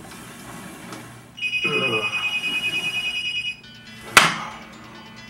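A telephone ringing: one electronic ring of about two seconds, a high warbling double tone. About four seconds in comes a single sharp clank from the home weight machine.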